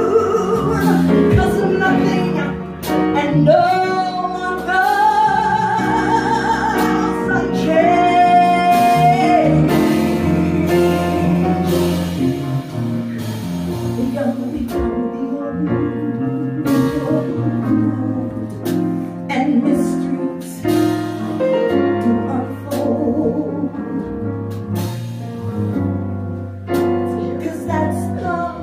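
Live jazz-blues band, with electric bass, keyboard and drums, accompanying a woman singing; she holds several notes with vibrato in the first ten seconds while cymbals and drums strike throughout.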